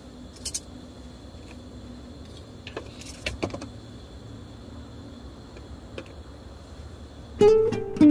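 Light clinks and taps of small teacups and teaware being handled on a wooden table, over a steady faint high whine. Near the end, strummed acoustic guitar music starts and is the loudest sound.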